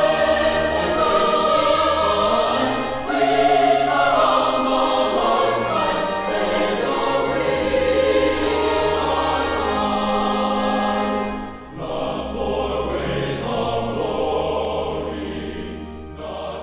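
Background music: a choir singing long held notes over low bass notes, growing quieter near the end.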